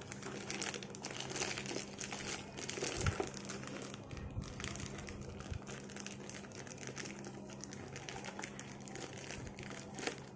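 Clear plastic bag crinkling and rustling as it is handled and pulled off a mixer grinder's motor base, with a steady low hum underneath.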